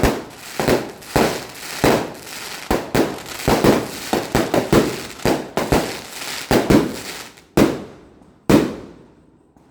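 Fireworks going off in quick succession: sharp bangs about two a second, each with a fading tail, thinning out near the end to two separate bangs.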